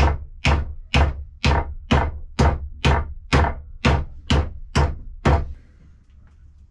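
Hammer nailing the top rail moulding onto a wooden church pew: a steady run of about a dozen sharp blows, roughly two a second, stopping about five seconds in.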